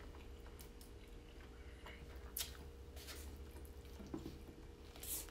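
Faint close-up mouth sounds of a person eating, with a few short clicks over a low steady hum.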